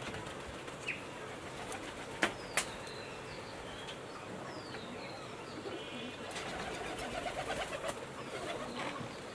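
Birds calling in the background, with a pulsed cooing stretch a little past the middle, and a few sharp clicks of a hard plastic figure being handled, once about a second in and twice just after two seconds.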